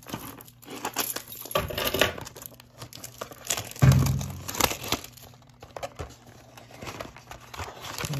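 Cellophane shrink wrap crinkling and tearing as it is pulled off a trading-card box, with cardboard rustling as the box is opened. A dull bump about four seconds in is the loudest sound.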